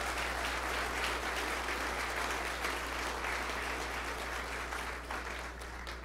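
Audience applauding: a dense patter of many hands clapping that thins out about five seconds in.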